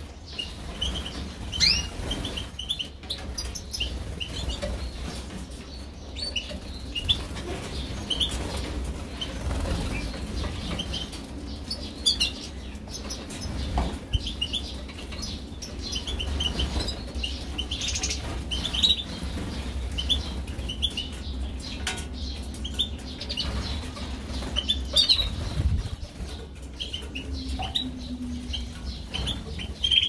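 Canaries and other small songbirds bathing in a shallow water tray, their wings fluttering and splashing the water, with many short high chirps throughout over a faint low hum.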